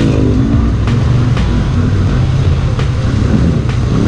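ATV engine revving up and down as the quad churns through a deep mud pit, its pitch rising and falling several times.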